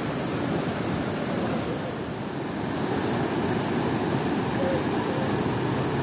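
Steady rushing of a fast-flowing mountain river running over rocks.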